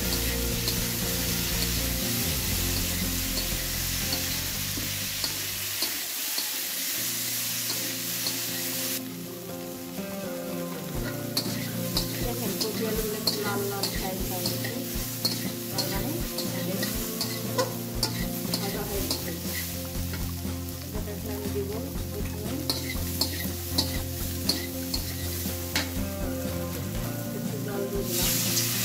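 Cauliflower pieces sizzling in oil in a large metal kadai, stirred and scraped with a long metal spatula that ticks and clinks against the pan again and again. The sizzle drops somewhat about nine seconds in and comes back up near the end.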